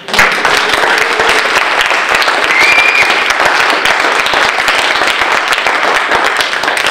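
Audience applauding: dense, loud clapping that starts abruptly and keeps up steadily.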